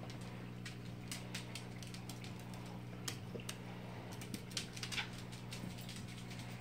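Faint, irregular clicking of a small dog's claws on a hard tiled floor as it walks about, the ticks clustering a little louder about four and a half to five seconds in. A steady low hum lies underneath.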